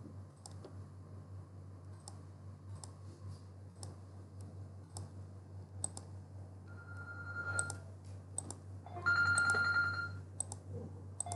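Computer mouse clicking over and over at an uneven pace, over a steady low electrical hum. Twice, about seven and nine seconds in, a short electronic ringing tone sounds; the second is louder and lasts about a second.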